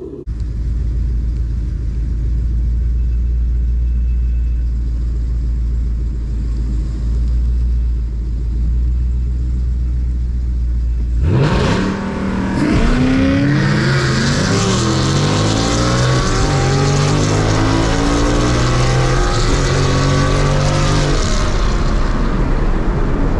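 2019 Mustang GT's 5.0-litre V8 holding a low, steady drone while staged, then about eleven seconds in launching hard down the drag strip, revving up through several gear changes for roughly eight seconds before easing off. The tyres hook and the engine bogs briefly off the line.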